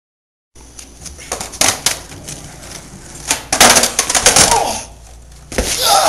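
A person stumbling and falling on a concrete driveway: scuffs and clattering, a sharp thud about five and a half seconds in, then the start of a pained groan. The first half-second is silent.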